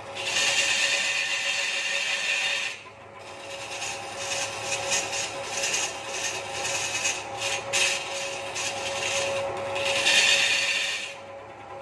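A hand-held turning tool scraping against a large wooden blank spinning on a belt-driven wood lathe, over the lathe's steady hum. The scrape runs strongly for about two and a half seconds, drops out briefly, then comes back unevenly, loudest near the end before it stops.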